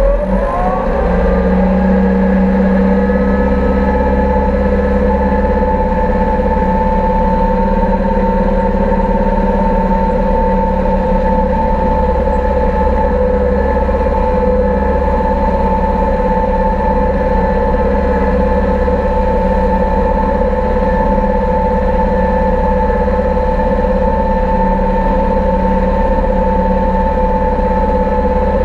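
Deutz 6206 tractor's air-cooled six-cylinder diesel running under load while driving a 2 m Fella mower through the grass, with a steady mechanical whine over the engine's low rumble. The pitch rises in the first second as the revs come up, then holds steady.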